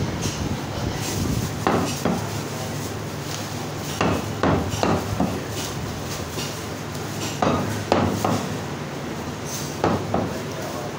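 Butcher's cleaver chopping mutton on a round wooden chopping block: sharp, irregular chops that come in clusters of two or three, about ten in all.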